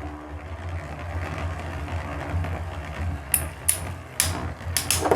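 Two spinning battle tops whirring in a stadium, clashing against each other with sharp clacks about five times in the second half. The tops are still spinning steadily, in a stamina battle.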